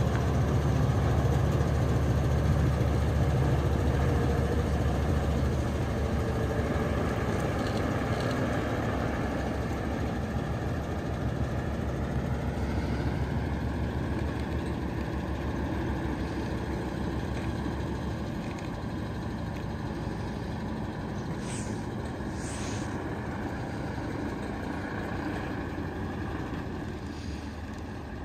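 Heavy transport truck's diesel engine running with a low rumble that grows steadily fainter as it moves away, with two brief hisses about three-quarters of the way through.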